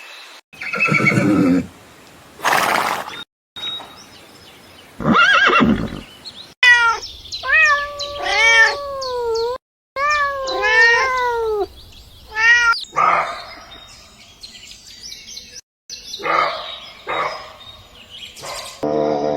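A string of short farm-animal call clips joined by abrupt cuts, with a run of rapid, pitched calls rising and falling in the middle.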